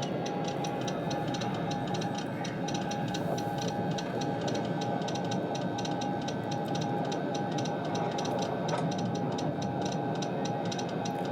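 Morse code beeping: a single steady high beep keyed on and off in dots and dashes, over a steady hiss, with a fast, even ticking alongside.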